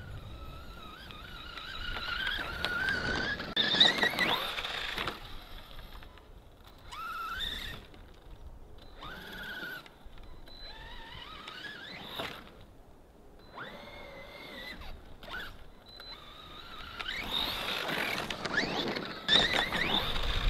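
RC monster truck's motor whining in a string of short throttle bursts, the pitch gliding upward in each. The loudest runs come about 4 seconds in and near the end, as the truck launches off a snow pile.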